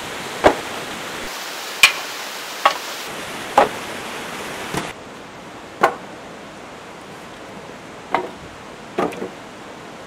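Dry firewood sticks knocking together as they are handled: about eight sharp wooden knocks, spread unevenly, over a steady background hiss that drops a little about halfway through.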